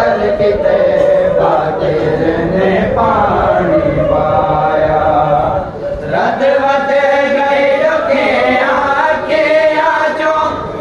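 Men's voices chanting a noha, a Shia Muharram lament, in long sung phrases, with a short break about six seconds in before the next phrase starts.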